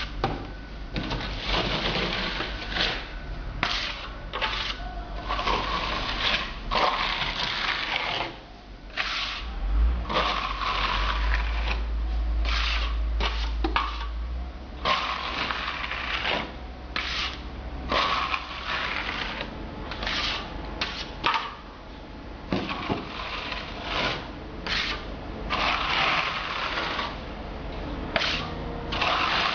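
Hand float rubbing over wet, grainy mineral render on a wall in a run of short, irregular gritty strokes with brief pauses between. The strokes roll the grains to texture the decorative finish.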